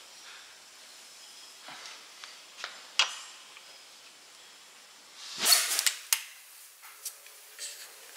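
Scattered metal clicks and knocks of a long-handled wrench and socket being fitted to and turned on the cylinder-head bolts of a Scania V8 diesel engine, with a louder, noisy burst lasting about a second around the middle.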